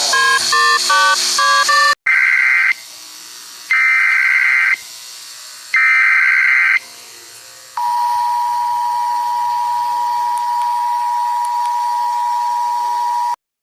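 Emergency Alert System alarm audio. It opens with a quick run of electronic beeps, then three one-second bursts of screeching SAME data header, then the steady two-tone EAS attention signal for about five and a half seconds, which cuts off abruptly.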